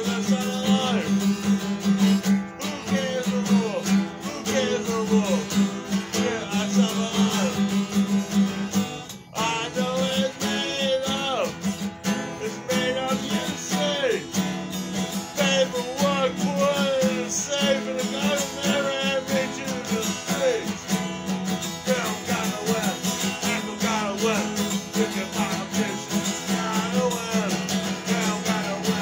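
A man singing to his own acoustic guitar playing, with a brief break about nine seconds in.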